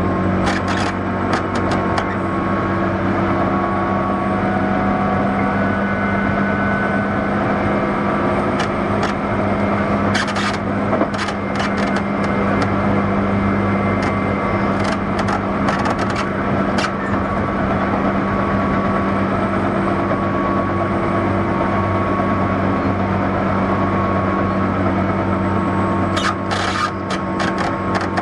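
Running sound inside a JR 201 series thyristor-chopper electric train, heard from its motor car: a steady hum from the motors and gearing over wheel-on-rail noise. Short bursts of sharp clicking come and go several times.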